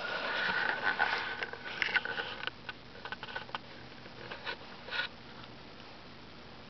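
Handling noise close to the microphone: a sharp click, then rustling with a steady whine for about two and a half seconds, then scattered clicks and soft rubbing that die away after about five seconds.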